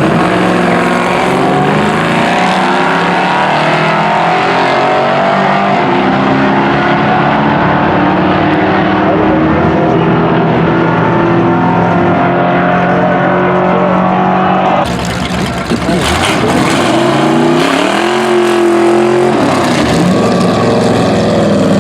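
Car engine running loudly at a steady speed, then after a sudden change, revving up once, holding and dropping back near the end.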